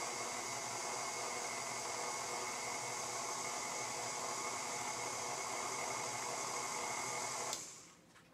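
Electric stand mixer running steadily as its beater mixes oatmeal batter, a motor noise with a steady high whine. About seven and a half seconds in it is switched off with a click and the motor runs down.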